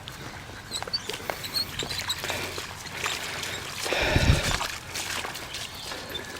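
Husky splashing and drinking in shallow, muddy creek water: a run of small splashes and sloshes, with one louder, deeper splash or thump about four seconds in.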